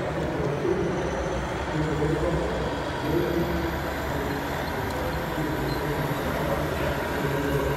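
Radio-controlled scale MAN truck's sound system playing a diesel engine, running steadily as the model drives slowly along.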